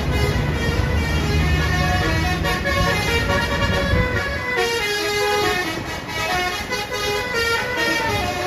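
A bus's multi-tone 'basuri' telolet air horn playing a melody of short notes over the bus engine's low rumble. The rumble drops away about four and a half seconds in while the horn tune carries on.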